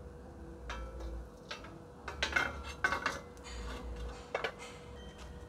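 Metal cooking pot and metal grill rack clanking and scraping as the pot is handled over a charcoal stove: a series of sharp knocks and clatters, densest around the middle.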